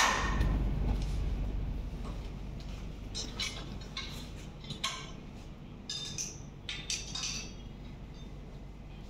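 Scattered light metallic clinks and clicks from a gym leg extension machine as someone sits down and settles into it, over a steady low hum.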